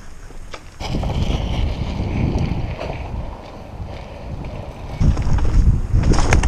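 Wind buffeting a helmet-mounted microphone along with mountain bike tyres rolling over dirt and gravel. It starts about a second in, eases off in the middle and grows louder again about five seconds in.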